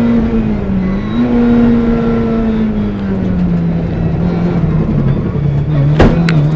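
VW Polo 1.4 rally car's engine running, heard from inside the cabin. The engine note holds steady with a short dip about a second in, then drops slowly as the car slows. Two sharp knocks come near the end.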